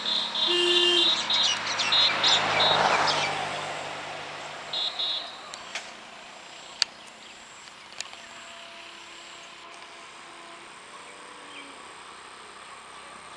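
Outdoor ambience of birds chirping, with a passing vehicle swelling and fading in the first few seconds. Then quieter background with a few short chirps and ticks.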